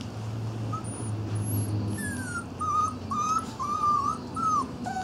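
A small dog whining: a string of short, high-pitched whines, starting about a second in and coming roughly twice a second.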